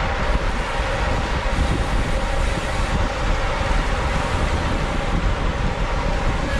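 Wind rushing over the microphone with a steady rumble of tyres on the road, from a road bike riding at race speed in a pack.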